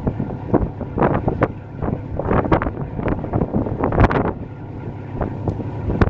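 Wind buffeting the microphone in irregular gusts on the open deck of a moving passenger boat, with the rush of the boat's passage underneath.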